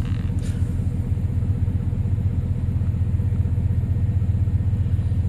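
A 2004 Chevrolet Silverado 1500's engine idling steadily just after a cold start, heard from inside the cab, with very little lifter noise, just a little bit.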